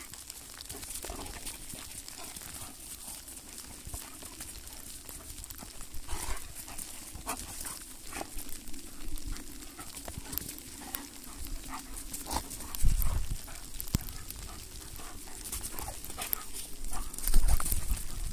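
Saarloos wolfdogs play-fighting at close range: scuffling and play noises from the dogs, with a couple of loud low thumps about thirteen and seventeen seconds in.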